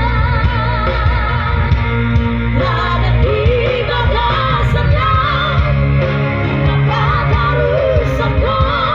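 Loud song with a wavering vocal line over heavy bass, played through a PA sound system being tested.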